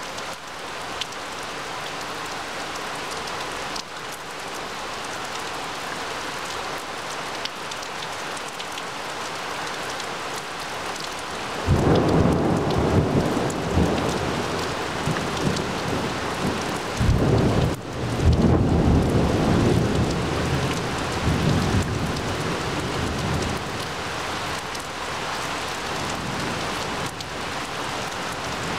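Steady rain falling on trees and grass. About twelve seconds in a roll of thunder breaks in suddenly and rumbles, swells again a few seconds later, then fades back under the rain.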